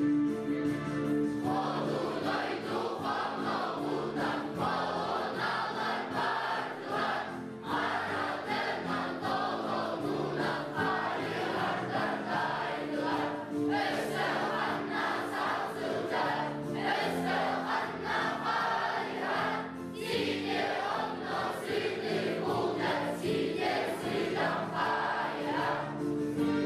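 Music with a group of voices singing over instrumental accompaniment; the voices come in about a second and a half in.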